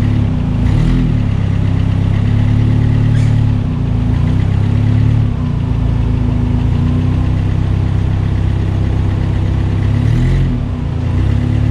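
Custom rock crawler's engine running at crawling pace on rocks, the pitch briefly rising and falling a few times as the throttle is worked.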